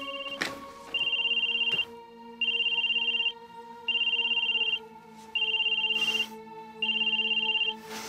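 Mobile phone ringing for an incoming call: an electronic ringtone of high beeps, each about a second long, repeating every second and a half, over soft background music.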